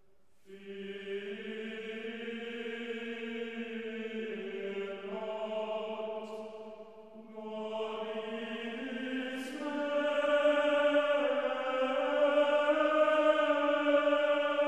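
Cathedral choir singing in held chords. A phrase begins about half a second in, there is a short break for breath near the middle, and the next phrase grows louder toward the end.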